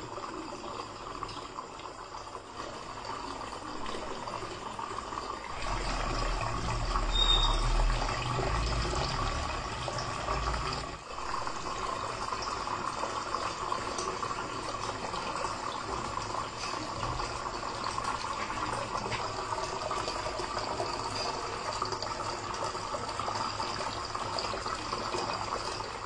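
Steady stream of water falling from a small cement fountain spout into a clay pot, trickling and splashing without a break. A low rumble comes in about six seconds in and stops about eleven seconds in.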